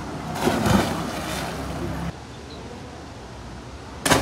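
A person diving head-first into a river pool: a splash into the water about half a second in, over outdoor wind and water noise. Near the end there is a sudden loud burst of noise.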